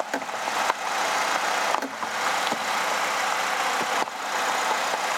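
Car engine idling, with a few sharp clicks and knocks from the front strut as the steering is turned. This is the coil spring binding and jumping, which the owner puts down to a catching bearing in the upper strut mount of a 2008 Chevrolet Malibu.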